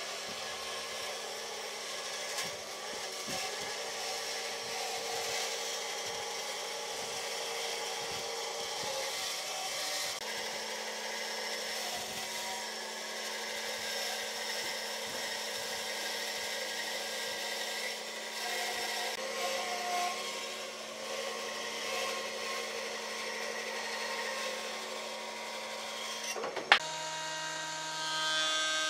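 Bandsaw running and cutting a thick wooden block: a steady motor hum with the hiss of the blade through the wood. About 27 seconds in there is one sharp click. Then a jointer starts planing the wood near the end, and the sound grows louder.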